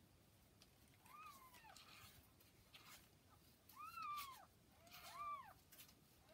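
Newborn kitten, about 40 hours old, mewing three times: short, high-pitched mews that rise and fall in pitch, the last two close together.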